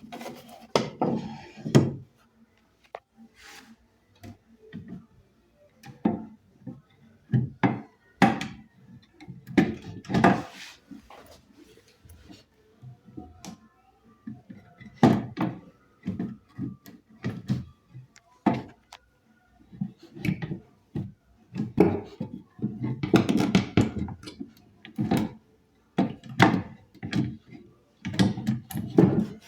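Irregular knocks, clunks and clicks of wood and metal being handled: an antique Singer sewing machine and its wooden cabinet being moved and worked by hand, not running at a steady stitch.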